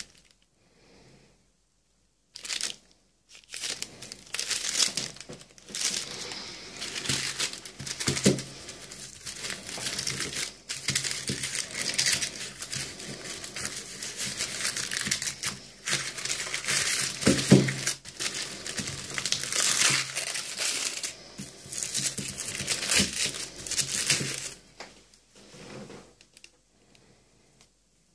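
Red paper wrapping of a firecracker pack crinkling and tearing as it is handled and opened, with the paper-covered firecracker tubes rustling. It starts a couple of seconds in and dies away a few seconds before the end.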